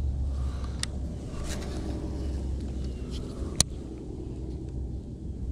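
Low, steady wind rumble on the microphone, with a few sharp clicks from handling a baitcasting rod and reel, the loudest about three and a half seconds in.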